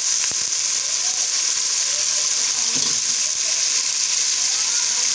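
Potato chunks and browned onions frying in hot oil in a cooking pot, a steady sizzle, with a couple of brief knocks as the pieces go in.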